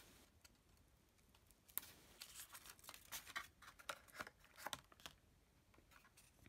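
Faint crisp paper rustling and small sharp ticks, starting about two seconds in and lasting about three seconds: glue dots being peeled off their backing paper and handled.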